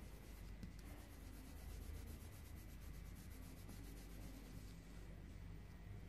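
Colored pencil scratching on paper in rapid back-and-forth shading strokes, faint.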